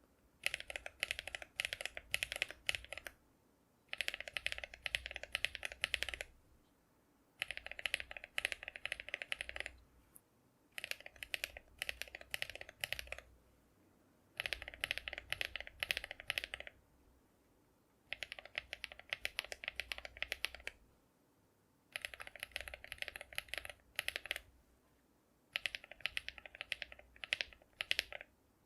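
Typing sound test on a mechanical keyboard: rapid keystroke clacks in bursts of two to three seconds, with short pauses of about a second between them.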